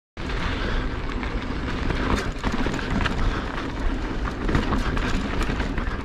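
Mountain bike ride down a dirt trail heard through a rider-mounted camera: a steady rush of wind on the microphone and tyre noise, broken by many quick rattling clicks from the bike. It starts abruptly just after the start.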